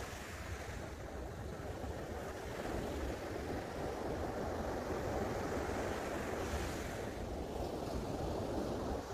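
Ocean surf breaking and foam washing up a sandy beach in a steady wash, with a hissing surge about two thirds of the way in. Wind rumbles on the microphone underneath.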